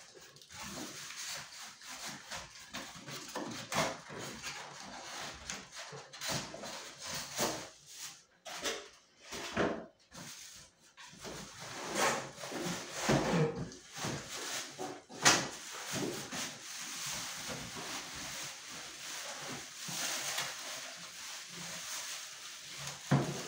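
Cardboard box flaps being pulled open and scraped, then a plastic bag around a microwave oven rustling and crinkling as it is handled, with a few sharp knocks in between.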